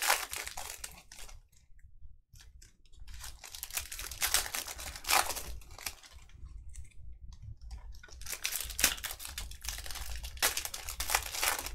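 Trading-card pack wrappers crinkling and tearing as packs are opened and the cards handled, in three spells of rustling with short pauses between.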